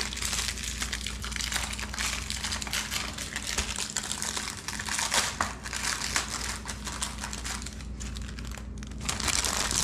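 Crinkling of a Ritz cracker sleeve's wrapper and a plastic zip-top bag being handled, a steady run of crackly rustles and small ticks that eases off briefly near the end.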